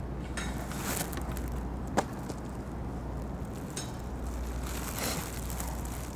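Outdoor ambience: a steady low rumble, broken by several short rustling noises and one sharp click about two seconds in.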